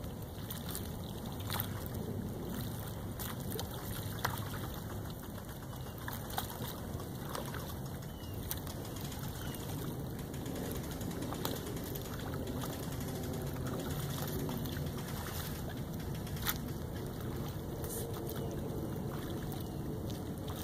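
Lakeside ambience: a steady low rush of wind and lake water, with a few faint clicks or small splashes scattered through.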